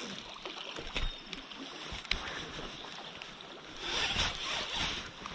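Steady hiss of a shallow stream's running water, with a few light knocks from handling the rod and reel. The hiss swells briefly about four seconds in.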